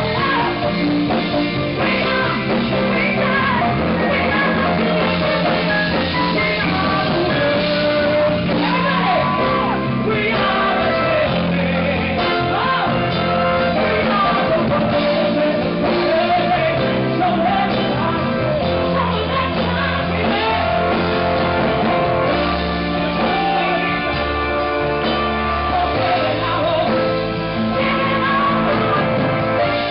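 Live band music with a sung lead line wavering and bending over steady guitar, bass and drums.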